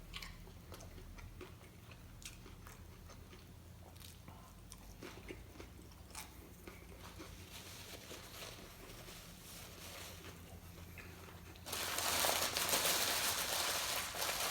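A person chewing and biting into a taco, with small crunching clicks. About twelve seconds in, a louder, steady noise sets in and runs on.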